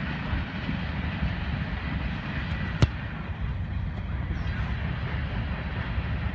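A steady low rumble, with a single sharp thump about three seconds in: a soccer ball being kicked at the crossbar.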